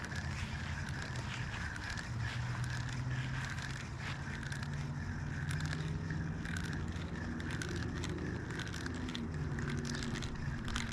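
A Penn Fierce IV 3000 spinning reel being cranked to retrieve a lure, a rhythmic whir repeating a little under twice a second with light clicks, over a low steady hum.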